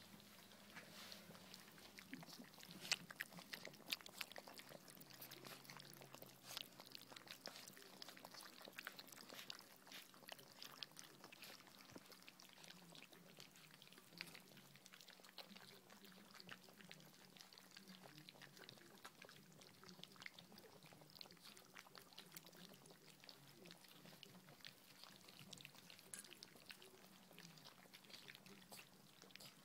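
Five-week-old golden retriever puppies lapping and slurping porridge from steel bowls: a faint, constant patter of small wet clicks.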